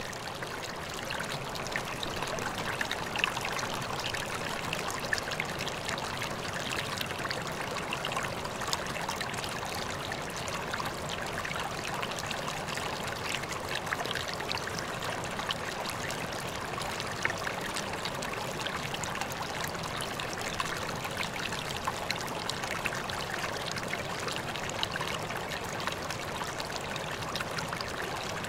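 Steady babbling of a flowing stream, rushing and trickling water that fades up at the start and then holds even.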